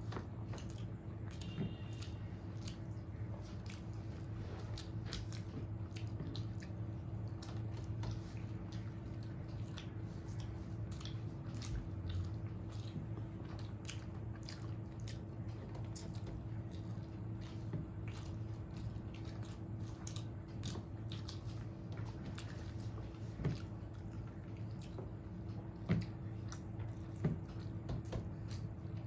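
A person eating rice with fried neem leaves and brinjal: chewing, small crunches and wet squishing clicks, scattered and irregular, over a steady low hum.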